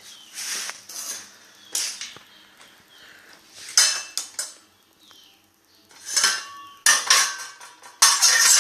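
Metal fork scraping across a plate in a run of short screeching strokes, some with a high squeal. The strokes grow louder and run together into one continuous scrape near the end.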